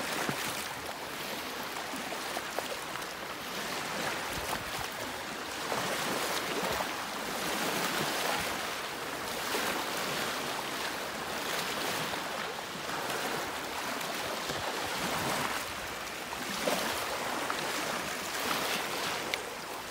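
Small sea waves lapping and splashing against a pebble and rock shore, the wash swelling and easing every few seconds.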